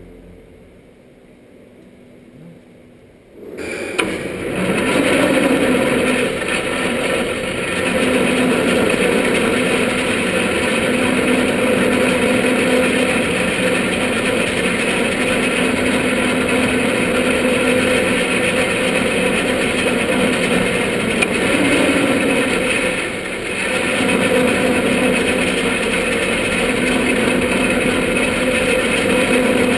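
Observatory dome shutter opening. Its drive motor and gearing start with a clunk about three and a half seconds in and run as a steady mechanical drone while the shutter slides open.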